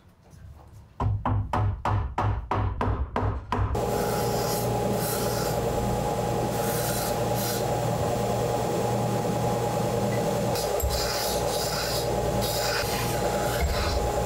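A file rasping on wood in short strokes, about three a second, for the first few seconds. From about four seconds in, a drill boring a long bit into a block of hardwood with a steady whirring.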